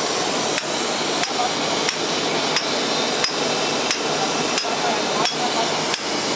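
Hammer striking metal at a steam locomotive's coupling: evenly paced clinking blows, about one and a half a second, each with a short high ring, over a steady hiss of steam from the locomotive.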